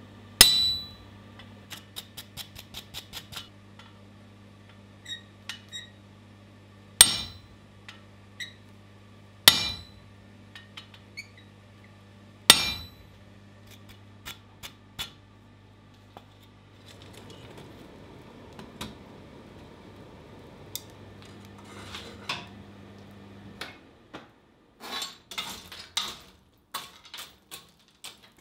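Hammer blows on a ball-ended punch driven into the red-hot end of a steel bar, sinking the rounded dimple of a cat-eye stamp: four heavy ringing strikes a few seconds apart, with quick series of lighter taps between them. Near the end come a run of metallic clinks and knocks of tongs and tools at the coal forge, and a steady low hum stops shortly before them.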